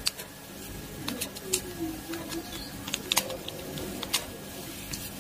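Scattered sharp metal clicks and ticks of a small precision screwdriver and metal parts as a screw is worked out of an Okuma Epixor XT 20 spinning reel's body, with a dove cooing softly in the background.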